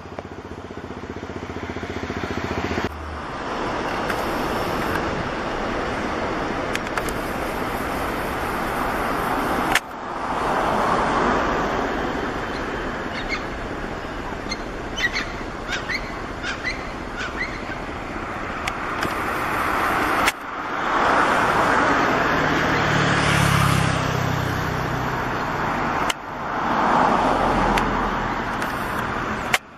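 Boeing 737-300's CFM56-3 turbofan engines running at takeoff thrust during the takeoff roll, a steady rushing jet noise. The level drops suddenly and builds up again several times.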